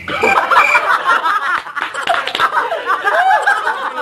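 A group of young men laughing loudly together, several voices overlapping, with a cricket chirping in rapid pulses during the first second.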